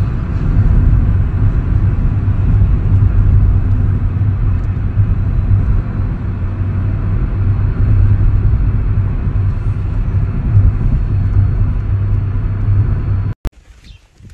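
Steady low rumble of a car driving on an open road, heard from inside the vehicle: engine and tyre noise. It cuts off abruptly about a second before the end, leaving only faint ambience.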